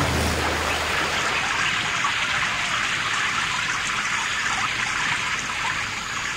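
Steady rush of moving sea water, gentle surf washing without distinct breaking waves; a low hum dies away in the first second.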